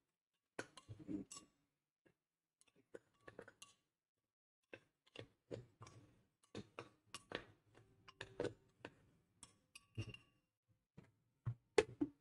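Irregular, fairly faint clinks and knocks of hard sun-dried plantain pieces dropping into a glass blender jar as it is handled and packed, with one sharper knock near the end.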